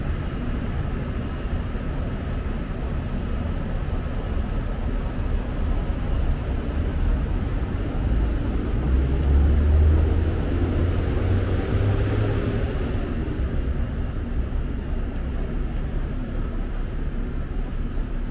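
Ambience of a busy train-station hall: a steady low rumble and hum, swelling into a louder deep rumble about nine to twelve seconds in.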